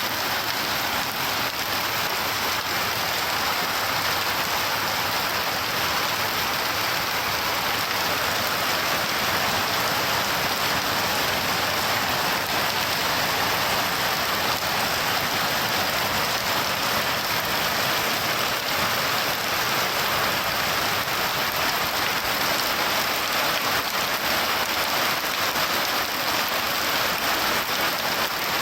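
Steady heavy rain falling, a dense even patter on surfaces.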